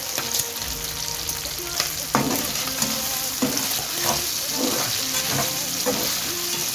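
Shelled snails frying in hot oil in a pot, a steady sizzle.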